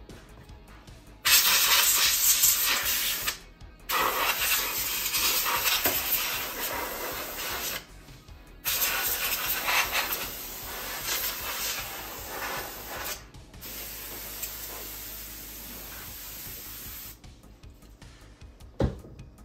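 Aerosol can spraying into a TV chassis in four long hissing bursts of a few seconds each, the first the loudest. A short knock near the end.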